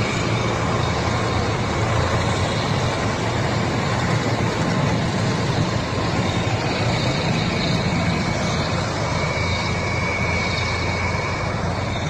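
Heavy trucks' diesel engines running steadily under a constant rushing noise.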